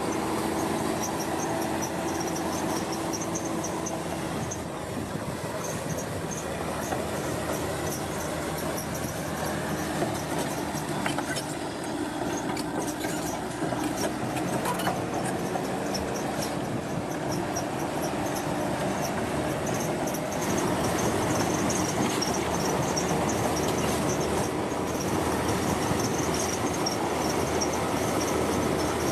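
Heavy construction machinery running steadily, with a rapid run of repeated high-pitched metallic squeaks over the engine noise.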